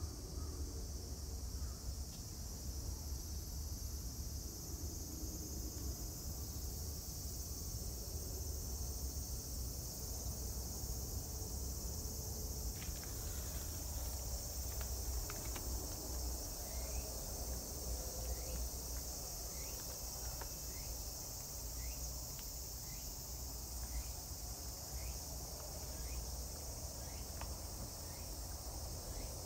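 A steady, high-pitched drone from a chorus of summer insects. In the second half, short faint rising chirps repeat about once a second over a low rumble.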